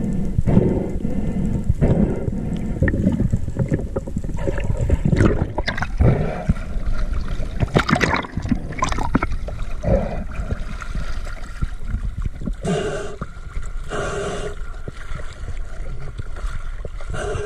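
Water rushing and gurgling around an underwater camera as the spearfisher rises with his catch, with irregular knocks and bumps; after it breaks the surface, choppy waves slosh around it. A few short pitched sounds come near the end.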